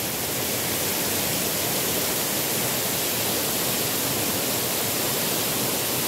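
Waterfall cascading down a rock face: a steady rush of falling water.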